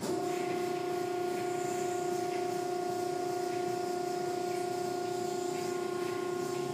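Automatic car wash machinery switching on with a sudden, steady mid-pitched electric hum, heard from inside the car over the constant hiss of water and cloth strips on the car.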